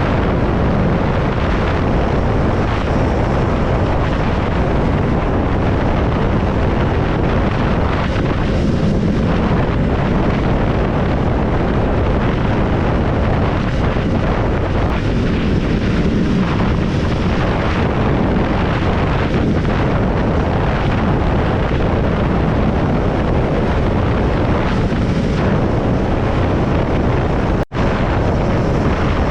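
Triumph Scrambler 400X's single-cylinder engine running steadily at road speed, with heavy wind rushing over the microphone. The sound drops out for an instant about two seconds before the end.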